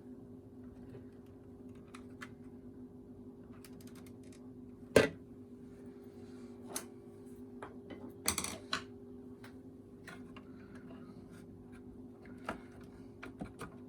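Screwdriver working at the plastic clips of a vacuum cleaner handle: scattered clicks and knocks of hard plastic, with a sharp knock about five seconds in and a short clatter about eight seconds in, over a steady low hum.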